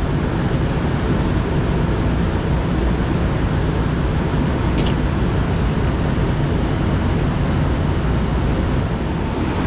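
Steady, loud rushing noise with a faint hum in it from a rooftop air-cooled chiller running, its fans and compressor going. A few faint light clicks come as the plastic auxiliary switch block is handled, the clearest about five seconds in.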